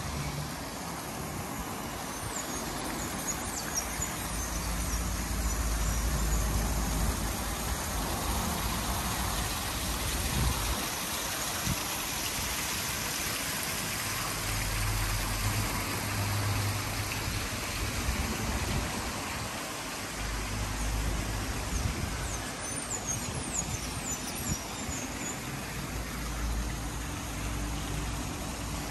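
Outdoor background noise: a steady hiss with an uneven low rumble, and a few short high chirps about two seconds in and again near the end.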